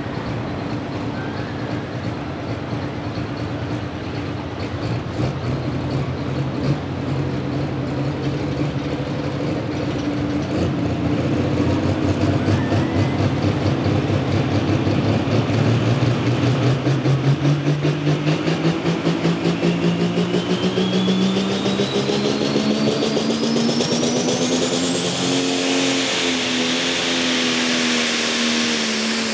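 International Harvester Pro Farm pulling tractor's turbocharged 466-cubic-inch engine running hard under load. It is steady at first, then climbs in revs from about halfway through. Near the end the Borg Warner S400 turbo's whine rises steeply in pitch as it spools up, then holds high.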